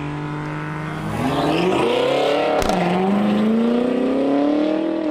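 Car engine running steadily, then accelerating from about a second in with its pitch rising. The pitch drops briefly with a click at a gear change partway through, then climbs again.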